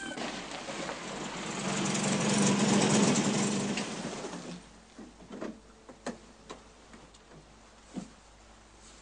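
MGB roadster driving up and pulling to a stop: its engine sound swells to a peak about three seconds in and dies away by about four and a half seconds. A few faint knocks follow.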